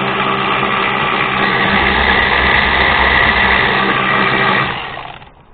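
Cordless 3/8-inch electric ratchet motor running steadily under load as it drives a lag bolt into wood, then winding down and stopping about five seconds in.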